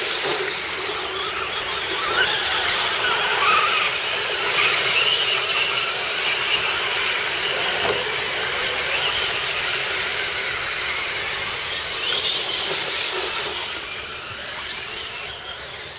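Electric motors and gear drivetrains of RC scale crawler trucks whining as they drive through mud, the pitch wavering up and down with the throttle. It drops in level near the end.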